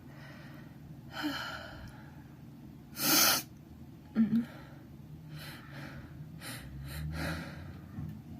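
A man with a head cold sneezing once, hard, about three seconds in, after a sharp intake of breath. Two short, sharp nasal sounds follow right after it, then softer, uneven breathing.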